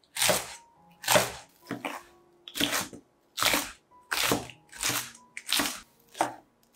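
Chef's knife chopping through a bunch of green onions onto a wooden cutting board: about nine crisp cuts, each a crunch ending in a knock on the board, a little under one a second.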